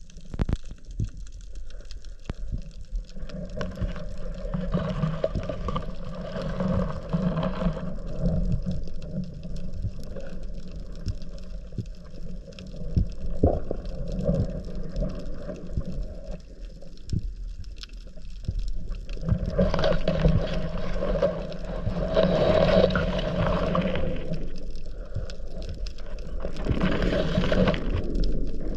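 Muffled underwater water noise picked up through a camera housing as a spearfisher swims over seagrass. It swells into a louder rushing three times, around 4 seconds in, about 20 seconds in, and near the end, with scattered faint clicks throughout.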